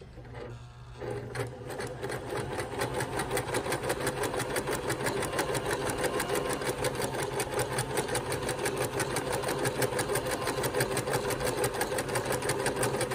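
Electric home sewing machine sewing a zigzag stitch: it starts up about a second in and gathers speed, then runs steadily with a fast, even needle clatter over a low motor hum.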